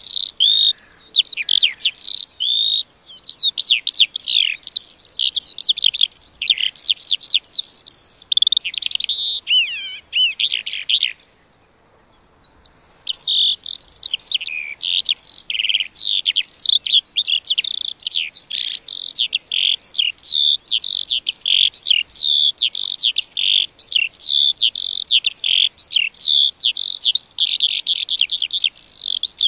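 A lark singing a long, fast, almost unbroken stream of high warbling and trilling notes. It pauses for about a second a little before halfway, then resumes.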